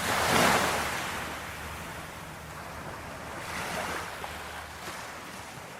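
Sea waves washing ashore, with wind on the microphone: a loud surge of surf about half a second in, then a smaller one near four seconds.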